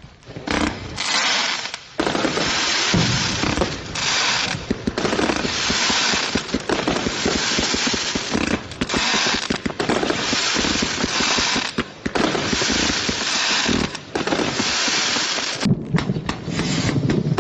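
A 36-shot consumer firework cake going off, its shots and crackle following one another in quick succession with a few short breaks.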